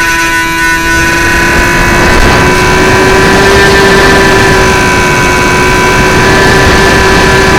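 Electric motor and propeller of an XK A700B RC airplane running steadily, heard from the onboard camera, its whine dipping slightly in pitch near the start and rising again about two seconds in. Heavy wind buffeting rumbles on the microphone underneath.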